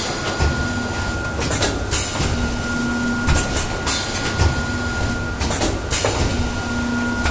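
A Suba Blankwiser carton blanking machine running, with a steady high whine and a low hum that comes and goes. Bursts of clatter repeat about every two seconds as stripped paperboard waste trim drops down the chute.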